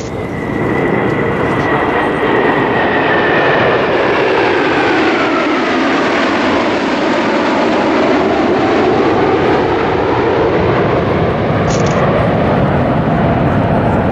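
A large formation of F-15 Eagle fighter jets flying past with a loud, steady jet roar. A whine in the roar falls in pitch over several seconds as the jets pass and draw away.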